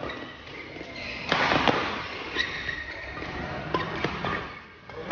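Badminton rally: rackets striking the shuttlecock with several sharp hits, the loudest two close together a little over a second in, along with short squeaks of players' shoes on the court floor.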